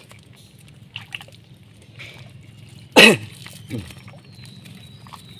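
A person coughs once, sharply, about halfway through, followed by a smaller cough or throat-clear a moment later. Faint wet ticking and crackling runs underneath.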